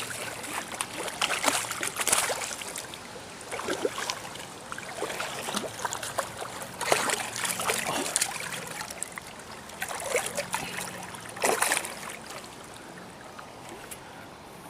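River water splashing and trickling close by, with irregular sharper splashes at intervals, the loudest about two, seven and eleven seconds in.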